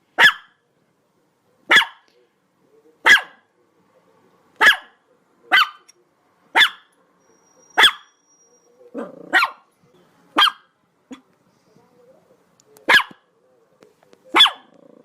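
A dog barking: about eleven sharp single barks, one every second or so with short pauses between them.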